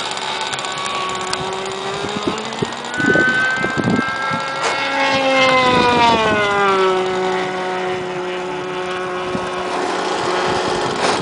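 RC pylon racer's model engine whining at high revs during a fast pass. Its pitch climbs as it approaches, is loudest about halfway through, then drops as it goes away and holds at a lower steady note.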